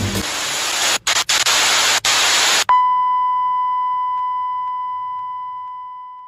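Digital glitch transition sound effect: a loud burst of static hiss broken by a few brief dropouts, cutting off about two and a half seconds in to a single high steady beep that slowly fades away.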